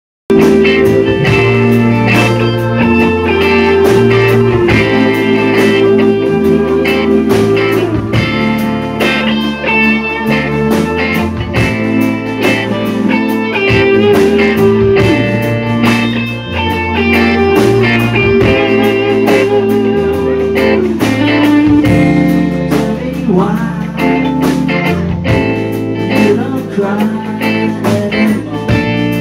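A live rock band playing a song, electric guitar over a drum kit, loud and continuous.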